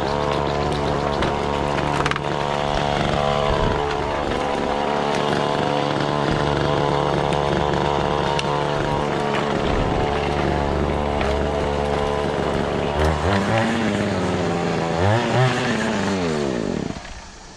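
Small petrol engine on lawn-care equipment running steadily. Its pitch swings down and up a few times near the end, then it cuts off suddenly.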